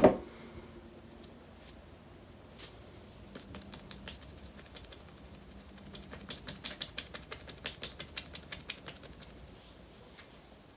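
Damp makeup sponge dabbed quickly against the skin while blending foundation: faint scattered pats, then a run of quick light taps at about five or six a second for roughly three seconds past the middle.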